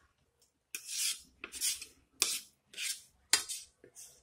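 Metal knife and fork scraping and cutting against a plate, a run of short scrapes about two a second, starting just under a second in.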